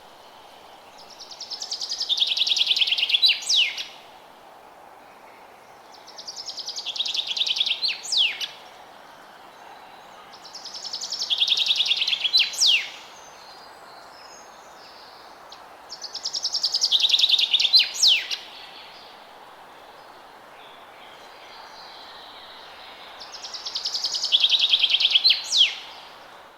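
A songbird in a forest sings the same trilled phrase five times, a few seconds apart. Each phrase swells over about three seconds and ends in two or three quick downward-slurred notes, over faint steady background noise.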